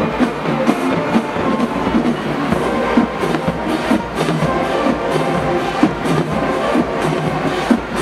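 Marching band playing: brass holding sustained chords over a steady drumline beat.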